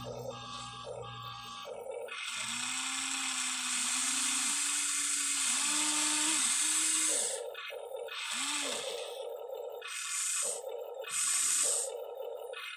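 Small electric motors and gearboxes of a Huina 1593 radio-controlled excavator whining in short runs. The pitch rises and falls as the motors speed up and slow down, with a steady tone between runs.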